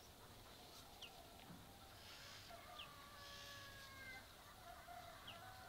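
Faint farmyard chickens clucking, with a few short high chirps scattered through a quiet rural background.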